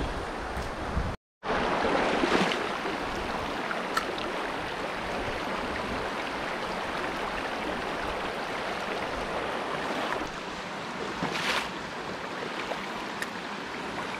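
Small mountain stream running steadily over rocks in an even rush of water. Wind rumbles on the microphone for the first second, then the sound drops out briefly.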